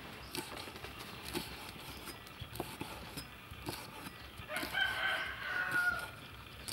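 A rooster crows once, a drawn-out call of about a second and a half starting past the middle, the loudest sound here. Under it, a cleaver knocks on a wooden chopping block as it chops leaves, about one chop a second.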